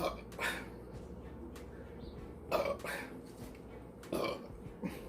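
A woman giving several short burps, a second or two apart, after gulping carbonated ginger soda.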